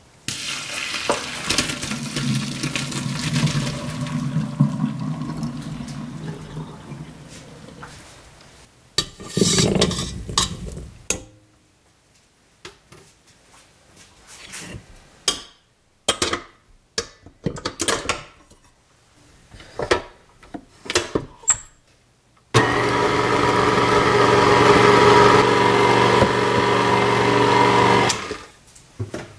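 Hot water and potatoes poured from a pot into a metal mesh strainer in a sink, a rushing splash that tails off, followed by scattered clatters and knocks as the potatoes are handled and tipped into a stainless mixer bowl. Near the end a KitchenAid stand mixer runs steadily for about five seconds, its paddle whipping the hot potatoes, then cuts off.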